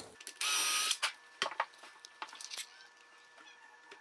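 Cordless drill running in one short burst of under a second into the drawer's side while fastening a ball-bearing drawer slide, followed by several light clicks and knocks as the drill and slide are handled.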